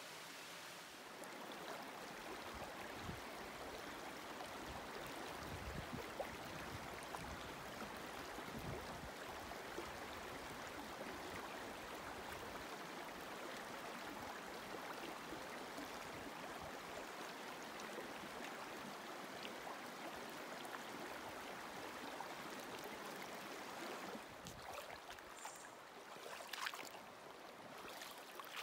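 Steady rush of flowing river water on the South Fork Skokomish River, with a few soft low knocks. Sharper clicks and a brief high chirp near the end.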